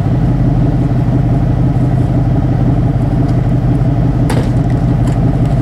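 A vehicle's engine running steadily with an even low hum, and one brief sharp sound about four seconds in.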